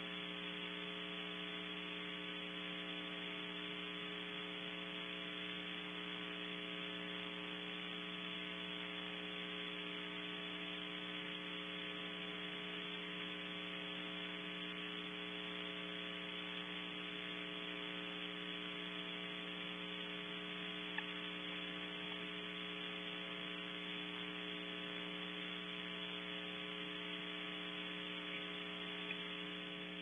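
Steady electrical hum with a buzz of evenly spaced overtones and a constant hiss from the nest camera's audio line; one faint click about twenty seconds in.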